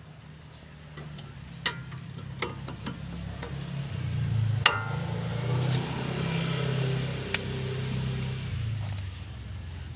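Light metallic clicks and taps of tools and brake parts being handled, one sharper clink a little before the middle. A steady low hum rises about four seconds in and carries on under them.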